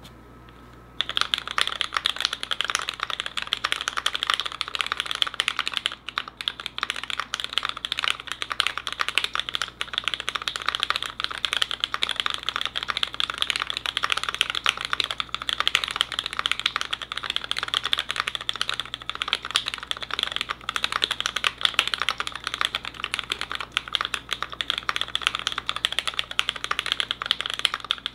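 Continuous fast typing on an ai03 Meridian mechanical keyboard: lubed Cherry MX Black linear switches in an aluminium plate, under GMK keycaps. The typing starts about a second in.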